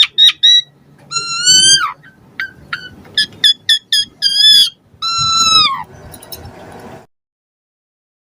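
Asian pied starling (jalak suren) singing: a busy run of short whistled notes and sharp clicks, broken by two longer, harsh, rasping notes that drop in pitch at the end. The song cuts off suddenly about seven seconds in.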